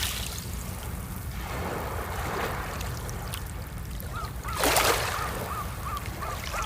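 Water washing and lapping in a harbour, swelling twice, the second time about four and a half seconds in, over a steady low rumble. From about four seconds in a short high chirp repeats about three times a second.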